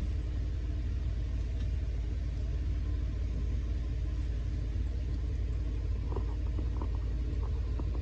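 Steady low rumble, with a few light clicks about six seconds in.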